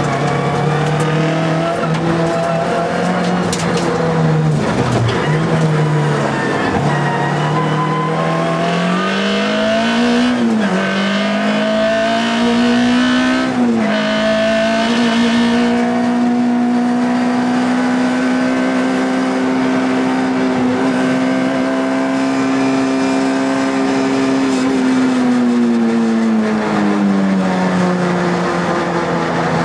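Škoda Felicia Kit Car rally engine heard from inside the cabin, driven hard on a gravel stage. The revs climb and drop twice in quick gear changes about a third of the way through, then hold high and steady for a long stretch before easing off near the end. A few sharp knocks come through in the first half.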